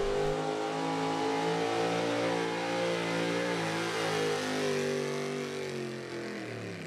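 Pulling truck's engine running hard at high revs during a pull, its pitch holding nearly steady with slight wavering and getting a little quieter over the last couple of seconds.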